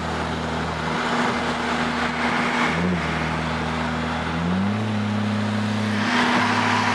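Car engine droning steadily at cruise under road and tyre noise, heard from inside the moving car. A little past halfway the engine note steps up in pitch and holds there.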